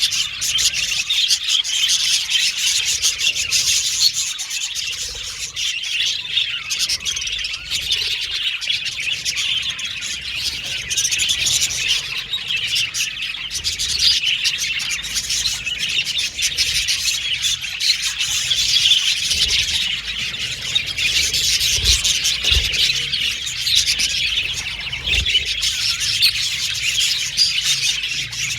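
A group of budgerigars chattering and chirping together, a dense, continuous warble of many short high chirps with no pauses.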